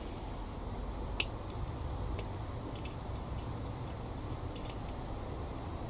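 Light clicks and taps of small plastic model-kit parts being handled, with one sharper click about a second in, over a steady low rumble.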